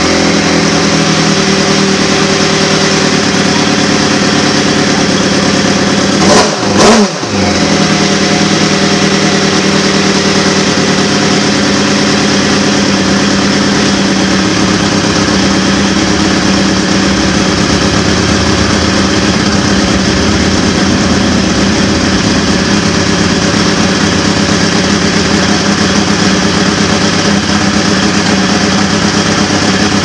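Drag-racing motorcycle engine idling steadily, with a brief swoop in pitch about six seconds in.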